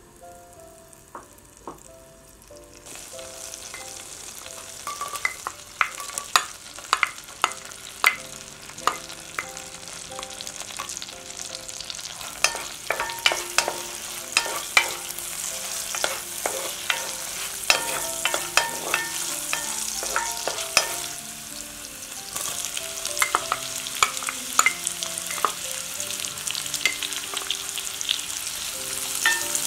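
Butter and sliced garlic sizzling in an enamelled cast-iron pot while a wooden spoon stirs, clacking against the pot many times. The sizzle starts a few seconds in and grows louder about two-thirds of the way through, once chopped onion is frying in it too.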